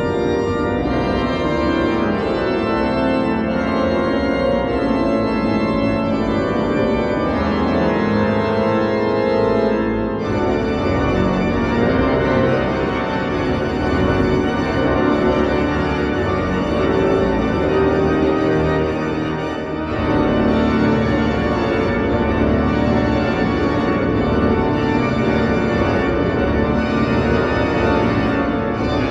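Church organ playing held chords in a slow hymn, with brief breaks between phrases about ten and twenty seconds in.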